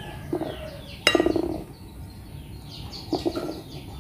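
Birds chirping over and over in short, high notes that fall in pitch. A sharp knock with a short rattle sounds about a second in, and a weaker one around three seconds.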